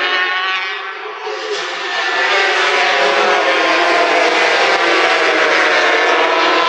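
Several racing motorcycles at high revs, their engine whines overlapping and shifting in pitch as they go through corners; the sound dips about a second in, then rises again as they accelerate.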